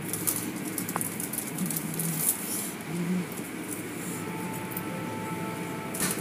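Automatic car wash cloth strips and water sweeping over a car's windshield, heard from inside the car: repeated swishing, slapping hiss on the glass over a steady low rumble of the wash machinery, heaviest in the first few seconds and again near the end.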